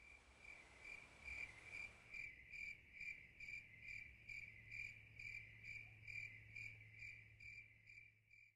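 A cricket chirping steadily, about two to three even chirps a second, with a faint low hum underneath; it cuts off suddenly near the end.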